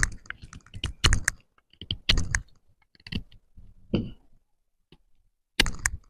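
J&V Cantero flat-ground bushcraft knife cutting into a wooden stick: sharp strokes about one a second, with a longer gap before the last one near the end.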